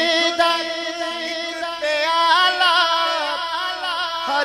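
Unaccompanied male voice singing a Punjabi naat, drawing out long wavering notes with slow melodic turns between the sung lines, over a steady low note held underneath.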